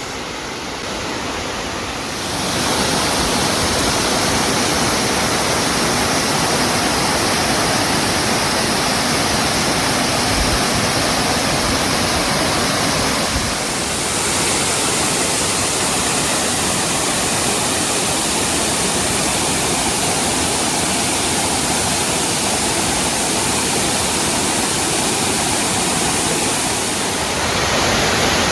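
A huge waterfall's water rushing and crashing down, a loud steady roar of falling water that grows louder about two seconds in.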